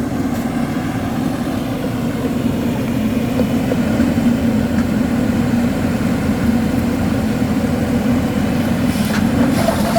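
Engine of rock-drilling construction machinery running steadily: a continuous, even hum without breaks.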